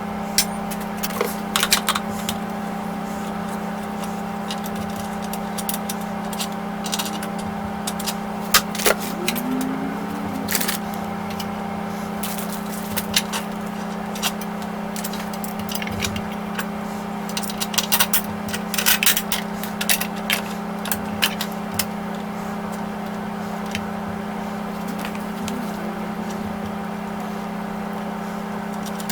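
Scattered clicks, taps and scrapes of small metal parts and hand tools being handled while a scroll-saw lifter arm is unscrewed and fitted, with clusters of them about a third and two thirds of the way through. Under them runs a steady low hum.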